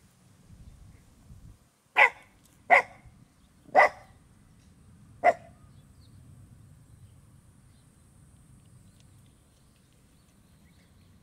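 Shiba Inu barking four short, sharp times over about three seconds, the barks coming at uneven intervals.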